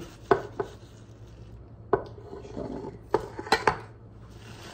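A metal spoon and an empty metal tin can being handled on a countertop: about six sharp clinks and knocks, spread unevenly, with a cluster of three near the end.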